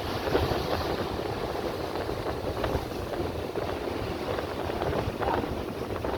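Steady rushing noise of sea wind buffeting the microphone, mixed with surf.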